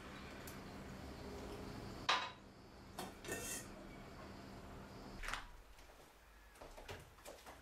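A few sharp knocks and clatters of hard objects being handled or knocked about, the loudest about two seconds in, with lighter clicks near the end, over a steady low hum that stops about five seconds in.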